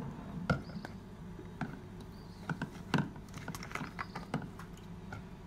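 Light, irregular clicks and taps of a metal spoon and bottles being handled over a small glass mixing bowl, about a dozen small knocks spread over a few seconds.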